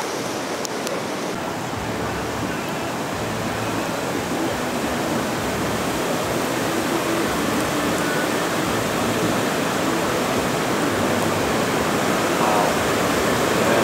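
Floodwater of an overflowing creek rushing in a steady roar, growing gradually louder.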